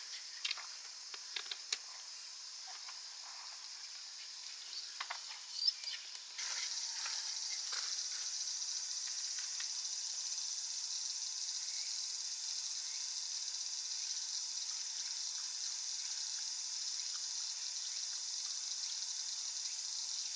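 Steady high-pitched chorus of insects, which gets louder about six seconds in, with a few light clicks and taps in the first seconds.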